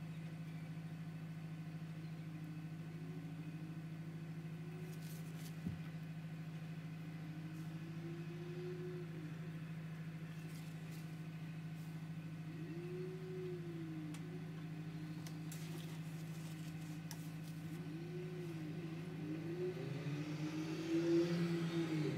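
A steady low hum, with faint tones sliding slowly up and down over it and a single short knock about six seconds in.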